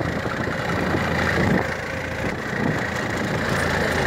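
A fishing launch's engine running steadily, a constant low drone.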